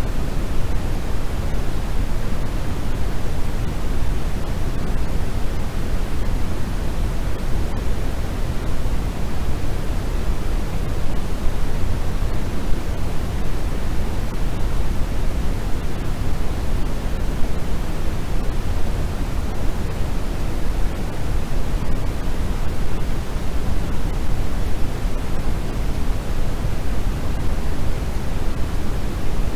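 Steady, unbroken 'white noise' sleep sound: an even hiss with no changes, weighted toward the low end like pink noise rather than bright white noise.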